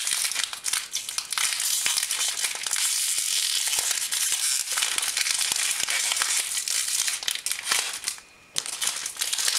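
Plastic packaging of an HP 61 ink cartridge crinkling and crackling as it is handled and opened, a dense continuous crackle that breaks off briefly near the end.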